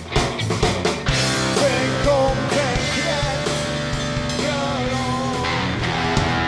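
Rock band playing live: electric guitars over drums keeping a steady beat. In the middle, a lead line bends and wavers above the band.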